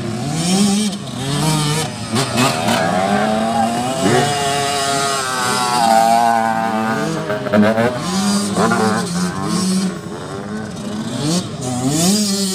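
Several motocross dirt bikes racing, their engines revving up and down, the pitch rising and falling again and again with the throttle.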